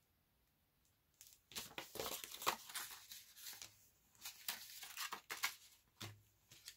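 Paper rustling and crinkling as a sheet of paper is handled and moved over a scrapbook page, starting about a second in, in irregular scratchy bursts.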